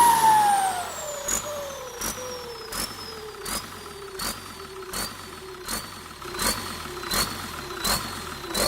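Holset H1C turbocharger whining down in pitch as it spools down after a rev, over a diesel engine. A short sharp puff comes about every three quarters of a second, each one briefly lifting the whine.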